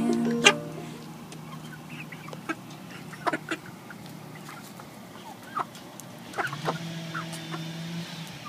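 Young Rhode Island Red and Barred Rock pullets, about 11 weeks old, clucking in short, scattered calls.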